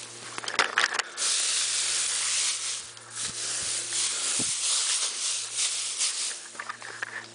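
Dry grass rustling close up as someone moves about in a bed of heaped dry grass. A few light crackles come first, then a dense, steady rustle from about a second in that eases off near the end.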